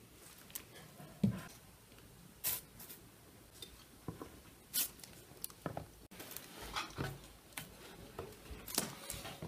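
Scattered light taps and clicks of kitchen handling: baked kata pastries lifted off a metal baking tray and set down on a wooden board, with a dull knock about a second in and a few sharper clicks.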